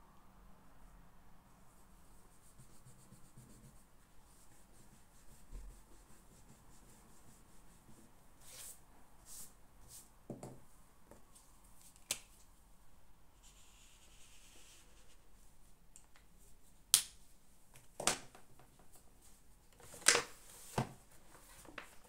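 Small desk sounds from someone studying in a quiet room: faint rubbing and handling, a short rustle about midway, and scattered sharp clicks and taps, the loudest four in the last few seconds.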